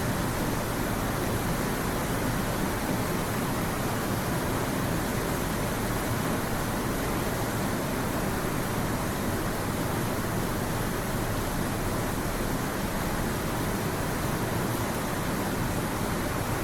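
Steady, even hiss-like background noise with no changes and no speech.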